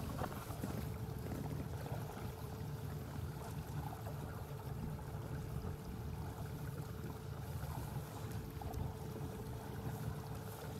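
Max 350 48-volt 2 kW brushless electric outboard running at about half throttle, drawing around 12 amps and 600 watts: a faint steady whine over a low rumble of water and wind.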